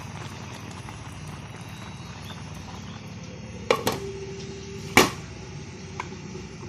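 Glass pot lid being set onto a cooking pot: a couple of clinks about three and a half seconds in, then a sharper knock of glass on the rim about a second later and a light tap near the end, over a steady low hiss.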